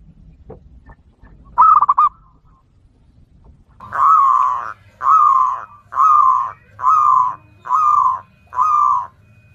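Zebra dove (perkutut) calling: a short fast trill about a second and a half in, then six evenly spaced cooing notes, each under a second long.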